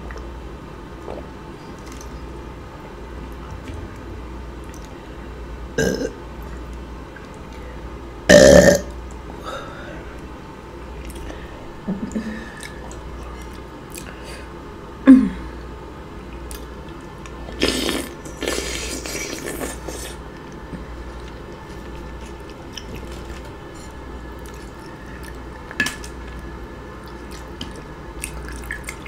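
A woman burping several times, spread out with pauses between, the loudest about eight seconds in and about fifteen seconds in; the second one drops in pitch. Small clicks of eating in between.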